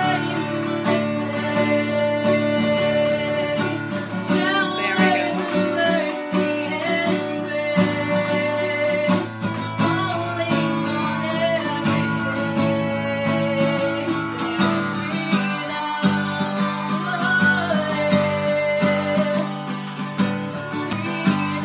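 A woman sings softly over a strummed acoustic guitar. Some of her held notes are long and straight, and others carry a slight vibrato.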